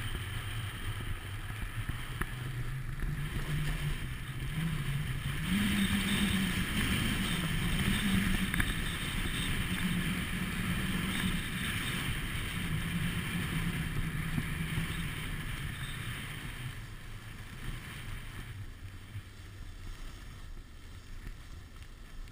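Wind rushing over a body-worn camera's microphone and the rumbling hiss of riding down a snowy slope, with a wavering low hum from the ride. It grows a little louder and the hum rises slightly about five seconds in, then eases off over the last few seconds.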